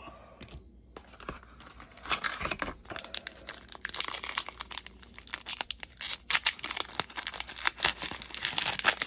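Foil trading-card pack wrapper crinkling and tearing as it is opened by hand, a dense run of crackles starting about two seconds in.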